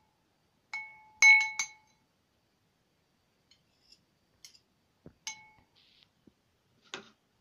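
A metal spoon clinks and rings against a glass bowl as blue colouring is worked into glue. There is one clink about a second in, then a quick run of three louder ones, then a few fainter taps later on.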